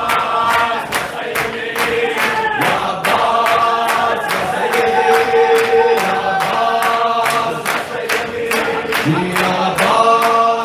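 A man singing a devotional chant into a microphone, with long held notes that bend in pitch, over a steady fast beat of about four sharp hits a second.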